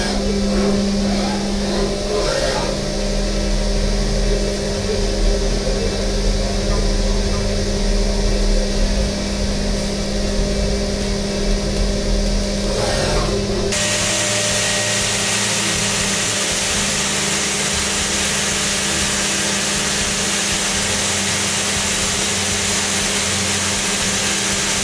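OKK VC-X500 5-axis machining center running a milling job, with a steady machine hum and a held low tone. About halfway through a loud steady hiss joins it.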